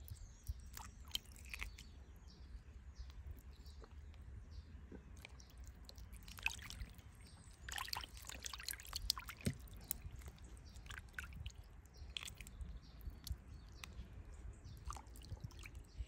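Faint wet handling sounds of raw sardines in water: scattered drips, squelches and small clicks over a low rumble, a little busier around the middle.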